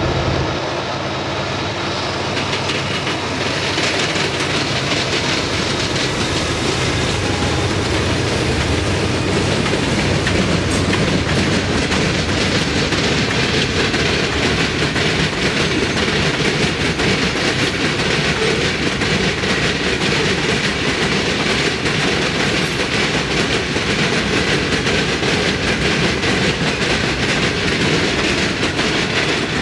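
A freight train's cars rolling past close by: a steady clatter of steel wheels on the rails. A low drone fades out over the first few seconds.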